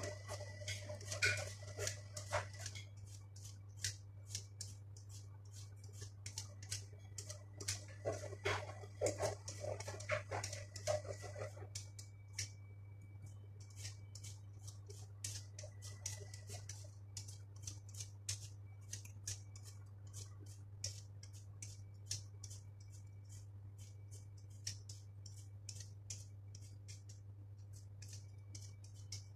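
Quick, repeated scraping strokes of a handheld vegetable peeler on a potato, several a second, over a steady low hum. Near the start and again about eight seconds in, a brief pitched vocal sound rises over the scraping.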